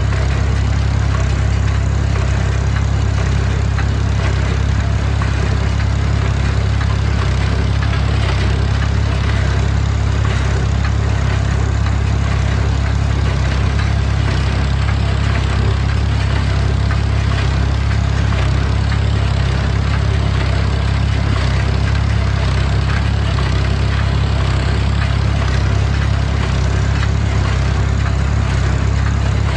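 Tractor engine running at a steady speed, a constant low drone with mechanical noise over it.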